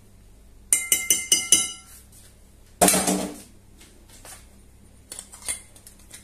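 Metal teaspoon tapping on the rim of a glass mixing bowl about six times in quick succession, each tap ringing, knocking the last of the smoked paprika off the spoon. Then one louder, duller knock and a few light clicks near the end.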